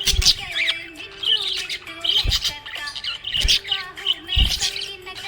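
Budgies chirping and warbling over background music, with a held melody line and four low thumps.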